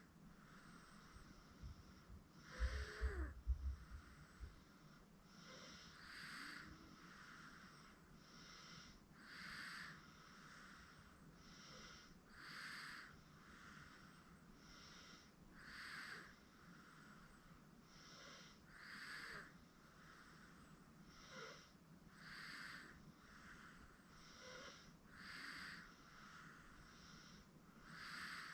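Sleeping 8-month-old baby snoring softly, one slow breath in and out about every three seconds. About two to four seconds in, a few low thumps, the loudest sounds here.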